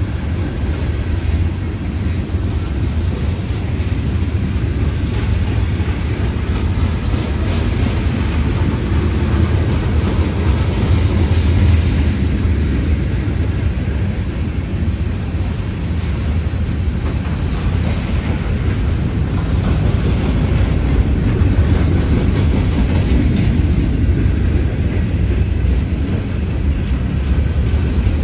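Norfolk Southern mixed freight train's cars (tank cars, covered hoppers, gondolas) rolling past close by: a steady, loud rumble of steel wheels on the rails.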